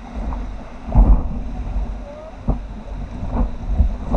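River rapids rushing around an inflatable raft as paddles dig into the water, with a sharp slap about once a second; wind rumbles on the microphone throughout.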